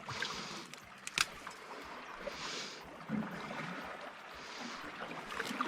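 Small waves washing in among shoreline rocks in three short surges, with a sharp click about a second in.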